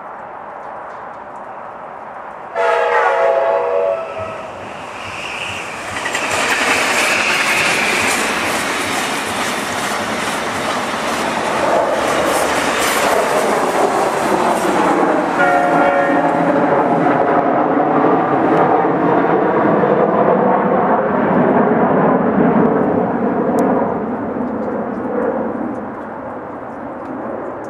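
Amtrak Cascades Talgo train led by an EMD F59PHI diesel locomotive passing at speed. The horn sounds a blast a couple of seconds in and a second short blast just past the middle, while the engine and wheels on the rails build loud as the train goes by and then fade away near the end.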